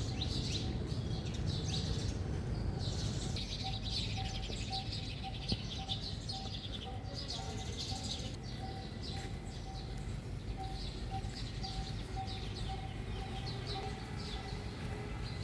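Many small birds chirping and twittering in quick, overlapping calls, over a steady low rumble.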